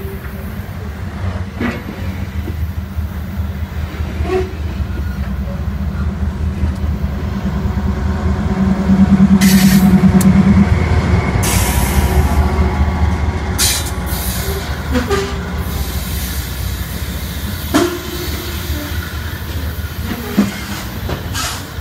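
A long freight train's wagons rolling past: a steady, heavy rumble of wheels on rail with scattered clanks and brief squeals from the wheels. The rumble is loudest about nine to eleven seconds in.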